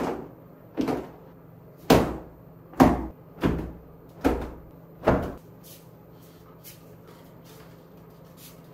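Laundry being shaken out by hand, the fabric snapping sharply seven times at about one a second, followed by a few faint clicks.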